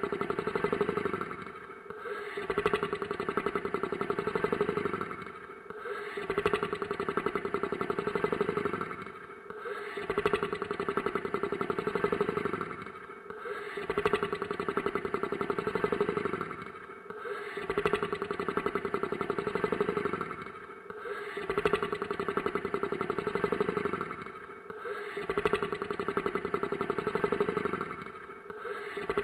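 Monster snoring sound effect: a rattling snore that swells and fades in a steady cycle about every four seconds, with a brief pause between breaths.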